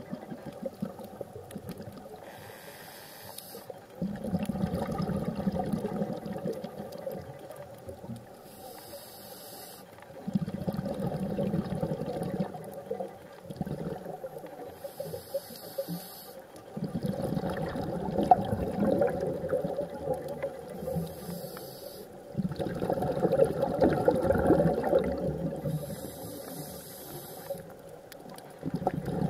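Scuba diver breathing through a regulator underwater. Each breath is a short hiss on the inhale, then a longer, louder rush of exhaled bubbles, about every six seconds.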